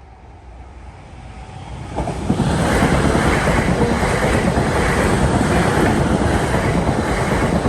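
A train passing through a level crossing at speed: the rail noise builds over the first two seconds, then becomes a loud, steady rush of wheels on rail that holds as the train goes by.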